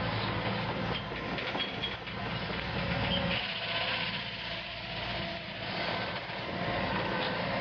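Hitachi 130 tracked excavator's diesel engine running steadily while the machine works a mowing basket, with a few brief high squeaks one to three seconds in.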